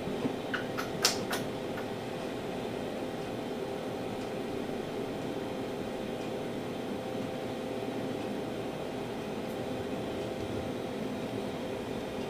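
Steady mechanical hum of a machine running in a small room, with a few faint clicks in the first second and a half.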